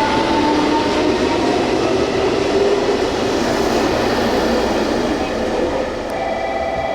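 An electric commuter or express train running past close by, a loud steady rush of wheels on rail with a motor whine gliding upward. Near the end, as the train noise eases slightly, a level-crossing warning bell rings in a steady pulsing pattern.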